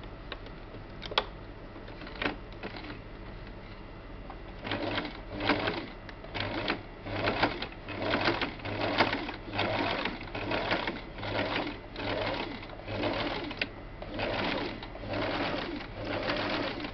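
Small electric sewing machine stitching fabric, starting about four and a half seconds in after a few light clicks. It runs on in a pulsing rhythm of about two surges a second.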